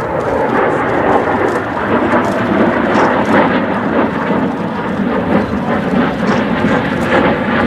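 B-2 Spirit bomber's four turbofan jet engines passing overhead: loud, steady jet noise with a deep rumble.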